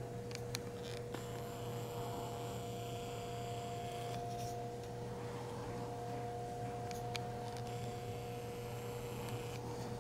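Steady electrical hum holding two steady tones over a low drone, with a few faint ticks now and then. A thin high whine comes in twice, a few seconds each time.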